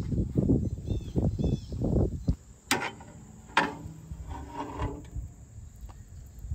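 Steel smoker doors being worked: dull thumps and rustling, then two sharp metal clanks about a second apart, followed by a brief faint squeak.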